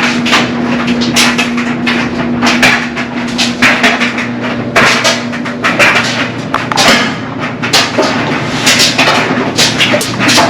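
Laundry-room clatter: many irregular sharp knocks and bangs over a steady machine hum, one hum tone dropping out about three seconds in.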